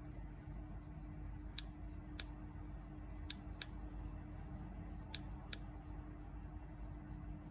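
Six short, sharp plastic clicks in three pairs from a handheld TOPDON TC004 Lite thermal imaging camera, over a faint steady hum.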